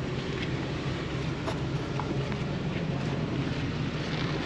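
Jeep Wrangler engine idling steadily, with a few short clicks over it.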